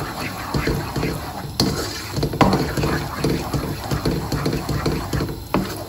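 Butter and sugar syrup caramelizing in a wok, bubbling and sizzling as a wooden spoon stirs it round, with a few sharp knocks of the spoon against the pan.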